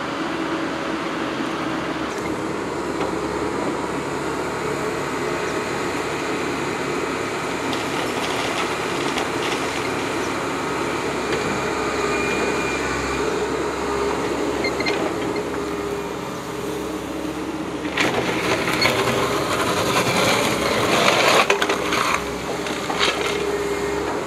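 Hydraulic excavator engines running steadily during trench digging. About three quarters of the way through, the Komatsu PW160 wheeled excavator's bucket clatters and scrapes loudly in stony soil for a few seconds.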